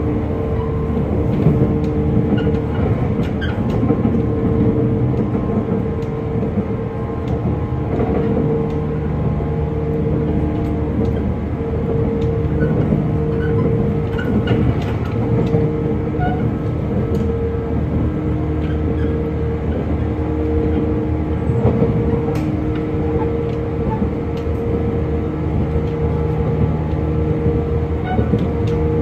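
JR 485-series electric multiple unit running at a steady speed: a constant hum from its DC traction motors and gearing over the rumble of the wheels, with scattered light clicks from the rails.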